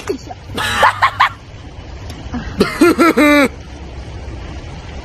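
A woman giggling and laughing in two short bursts, about half a second in and again around three seconds in, over a low steady rumble.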